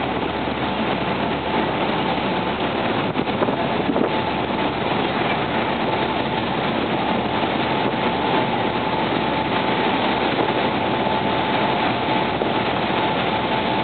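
Steady noise of motorboats under way at speed: engine, wind and rushing water from a boat running close by with its bow throwing spray, over a faint steady whine.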